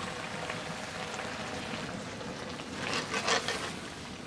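An iron karahi of curry is lifted off a wood-fired clay stove and scraped down onto the ground, giving a short rasping scrape about three seconds in. Under it is the steady crackle and sizzle of the wood fire and the simmering curry.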